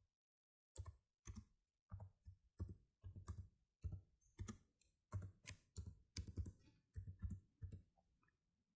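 Faint typing on a computer keyboard: short key clicks, a few a second, as a line of text is typed out, stopping shortly before the end.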